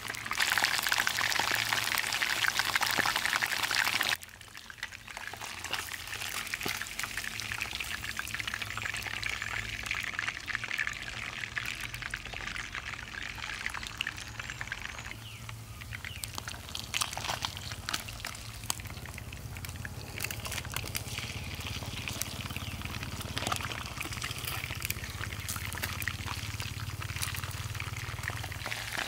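Whole frogs deep-frying in hot oil in a pan over a wood fire. The oil sizzles loudly and densely for about four seconds, then drops off suddenly to a softer, steady sizzle with scattered crackles and pops.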